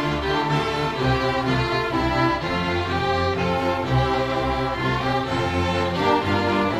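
Children's and youth symphony orchestra playing a classical piece: violins carry the melody over cellos, with the notes moving steadily and no pause.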